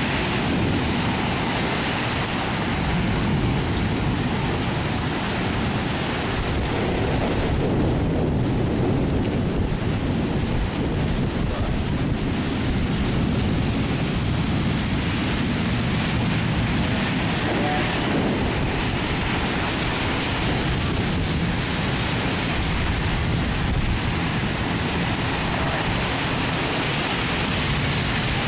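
Steady heavy rain and wind of a severe thunderstorm, an even unbroken rush with a heavy low rumble.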